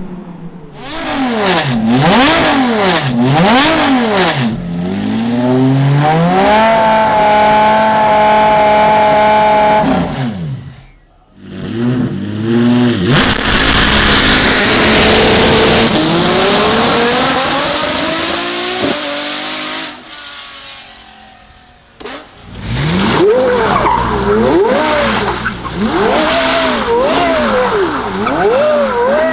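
Supercar engines revving hard in quick succession: sharp rev blips, a long held high note, then a hard launch with wheelspin hiss as the revs climb. Near the end a Porsche Carrera GT's V10 revs up and down again and again as it spins donuts, tyres squealing.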